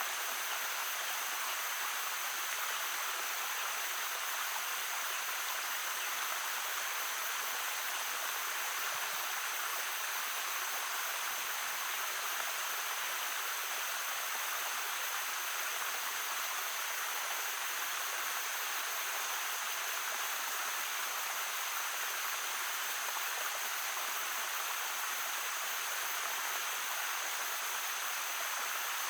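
A shallow stream babbling, a steady, even rush of flowing water.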